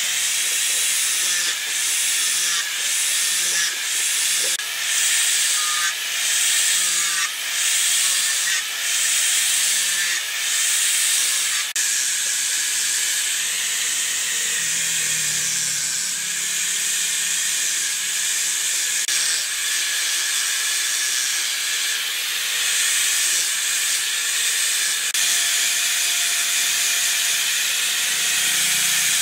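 Electric angle grinder with a sanding disc sanding carved wood: a hissing abrasive scour over a high motor whine that sags under load. For the first dozen seconds or so it works in repeated passes about a second apart, then it runs steadier.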